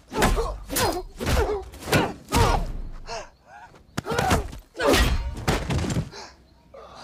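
Fistfight sound effects: a rapid series of heavy punch and body-blow thuds mixed with grunts of effort, in two flurries, the second ending about six seconds in.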